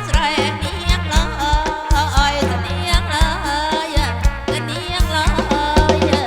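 Live kantrum folk music played loud through a PA sound system: a wavering melodic lead over a bass line and a steady drum beat.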